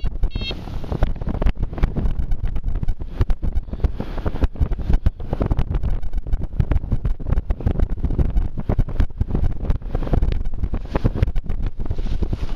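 Airflow buffeting the camera's microphone in paraglider flight: a loud, gusting rumble that rises and falls continuously. A few short electronic beeps sound at the very start.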